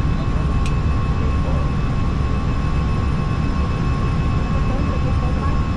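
Steady Airbus A320 flight-deck noise: a constant low rumble of engines and airflow with a faint steady whine above it. One short, high click comes under a second in.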